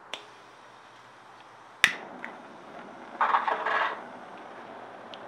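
A butane soldering iron being lit with a cigarette lighter: a few sharp clicks, the loudest a little under two seconds in, then a short rush of noise just after three seconds as the gas catches. A faint steady hiss of the burning flame follows.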